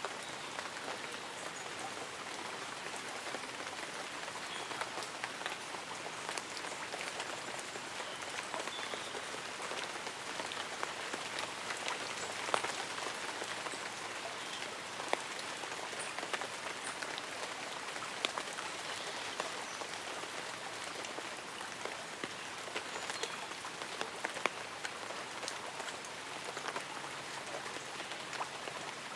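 Light rain falling steadily on tree leaves and an umbrella, with individual drops ticking at irregular moments.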